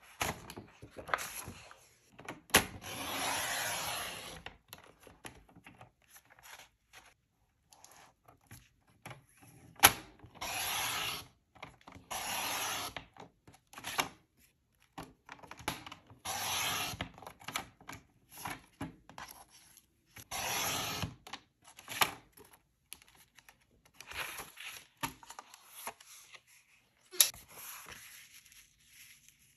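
Paper and craft materials being worked by hand: a series of short rubbing or brushing strokes against paper, about a second each, between sharp taps and clicks, the loudest about ten seconds in.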